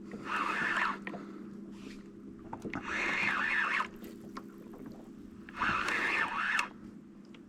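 Fishing reel cranked in short spells of about a second, roughly every three seconds, as a big fish is pumped and reeled up from the bottom, over a steady low hum.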